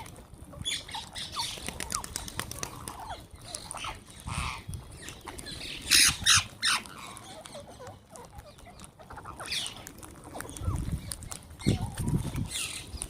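Wild green parrots squawking and chattering, a string of short, harsh calls, with the loudest pair of squawks about six seconds in. A few low thumps near the end.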